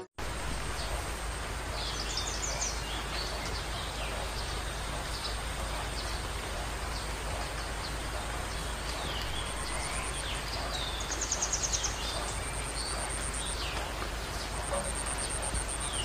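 Rural field ambience: birds chirping on and off and insects keeping up a thin high steady buzz with pulsing trills, over a steady low rumble.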